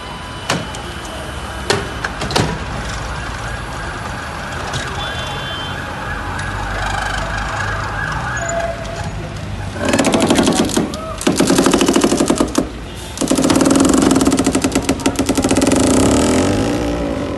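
City street traffic with a few sharp clicks, then from about ten seconds in a loud, rapid rattling that comes in three long bursts.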